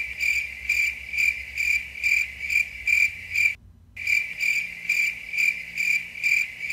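Cricket chirping: one high chirp repeated evenly about twice a second, with a brief break a little past halfway.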